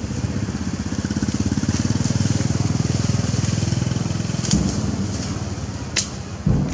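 Motorcycle engine running with a fast, even low putter, swelling and then easing off, with a sharp click about six seconds in and a thump near the end.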